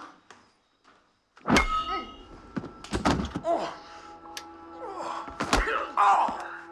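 Film soundtrack: heavy blows and thuds of a sudden violent attack, the first and loudest about a second and a half in, with further hard hits later, over sustained dramatic music. Short pained cries come near the end.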